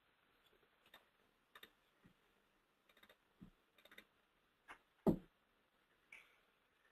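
Faint, irregular clicks of a computer mouse, about nine in all, with one louder, duller knock about five seconds in.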